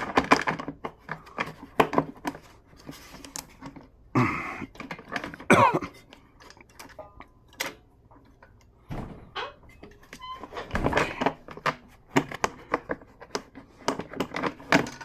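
Scattered clicks, knocks and scrapes of a lawn mower's fuel tank and engine parts being handled and fitted into place by hand, with a short scraping slide about five and a half seconds in and busier clicking near the end.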